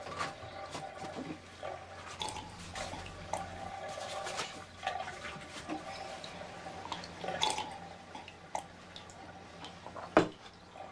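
Bathwater splashing and dripping in a bathtub in a small tiled bathroom, with scattered small knocks and one sharp knock near the end.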